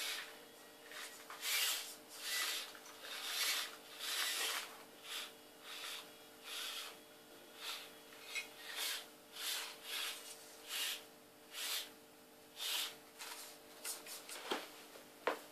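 Losi micro rock crawler driving in short bursts, one or two a second, as it is throttled on and off: a whir of its small motor and gears with its tyres scrabbling and rubbing on polystyrene foam blocks. A couple of sharp clicks come near the end.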